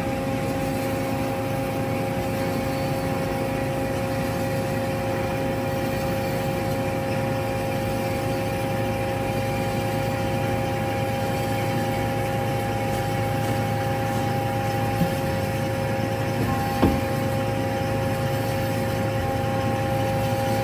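Hyd-Mech H16A horizontal band saw running in its automatic cycle as its hydraulic vise shuttles a new bar forward: a steady machine hum with two constant whining tones. There is a light click about fifteen seconds in and a sharper clack about seventeen seconds in.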